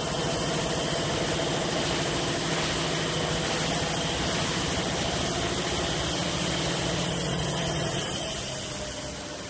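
Automatic tube-feeding flow-wrap packing machine running: a steady mechanical hum under a constant hiss, a little quieter from about eight seconds in.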